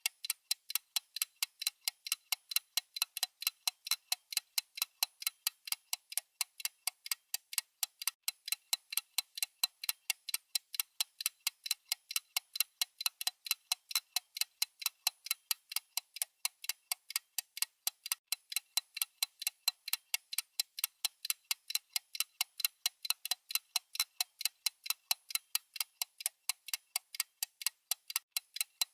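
Clock-style ticking sound effect of a countdown timer: sharp, thin ticks at an even, fast pace of several a second, with no change in tempo.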